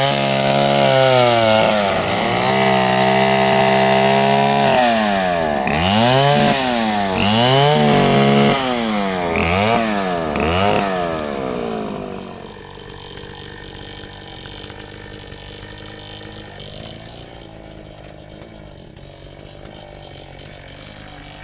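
Chainsaw engine held at high revs for a few seconds, then blipped up and down several times, before dropping back to a steady idle about twelve seconds in.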